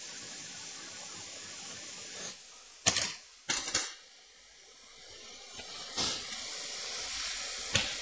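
Hot air rework gun blowing with a steady hiss, heating the board to burn off liquid flux. The hiss cuts out a little over two seconds in and a few sharp clicks follow. A softer hiss then builds back gradually, with a couple more clicks.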